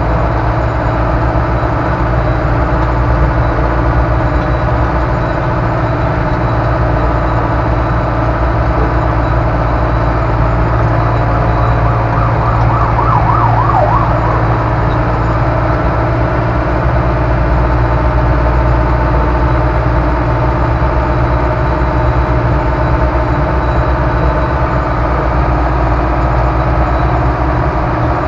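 Ursus C-385 tractor's four-cylinder diesel engine running steadily while driving, heard from inside the cab. About twelve seconds in, a brief warbling sound rises above it for a couple of seconds.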